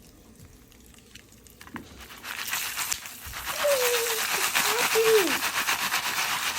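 Foil stovetop popcorn pan being shaken back and forth on the stove burner, a scraping, rattling noise that starts about two seconds in and carries on.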